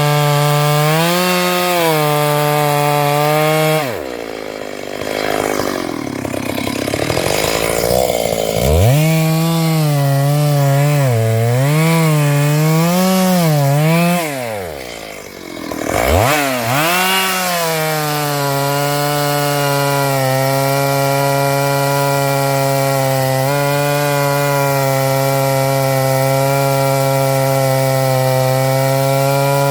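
Stihl MS 382 two-stroke chainsaw cutting into a sengon tree trunk at high revs. Its revs drop sharply twice and climb back, wavering in between, then it runs at a steady high pitch through the cut.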